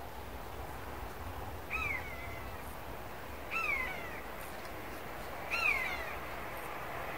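Common buzzard giving its mewing call three times, about two seconds apart; each call is a drawn-out note that falls in pitch, and the third is the loudest.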